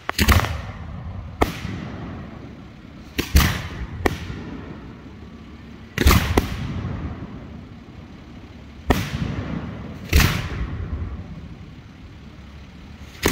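Hand-fired 3- and 4-inch aerial firework shells launching from mortars and bursting overhead. About nine sharp bangs come at irregular gaps of one to three seconds, each trailing off in a rolling echo.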